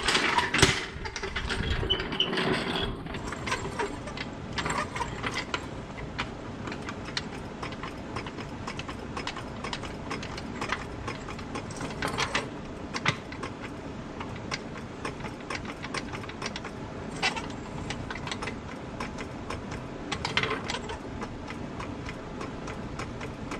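Hydraulic floor jack being pumped under the engine's oil pan on a wood block, lifting the engine to take the tension off the motor-mount bolt. A steady run of small mechanical clicks and creaks comes with each stroke, with louder knocks and clatter in the first few seconds.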